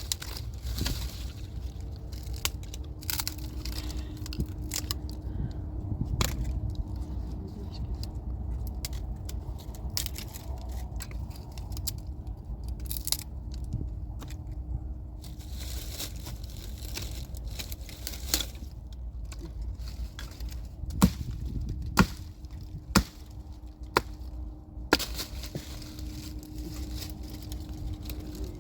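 Dry wood snapping and cracking, with about five hard strikes roughly a second apart near the end, over a low steady rumble.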